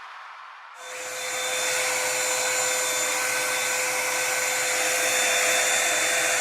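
Revlon One-Step hair dryer brush switching on less than a second in and running steadily: a rush of blown air with a steady motor whine over it.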